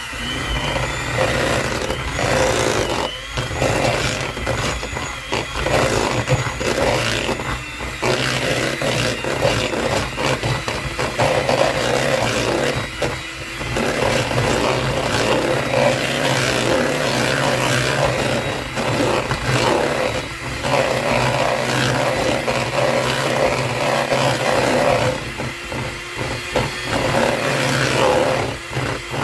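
Electric hand mixer running continuously, its beaters creaming softened butter and cream cheese together in a mixing bowl.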